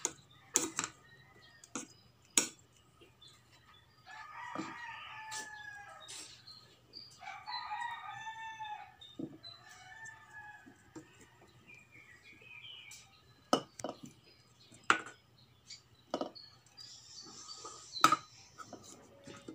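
A rooster crows, its call arching up and down between about four and nine seconds in. A ladle gives sharp short knocks and scrapes against the aluminium inner pot of a rice cooker several times while scooping rice.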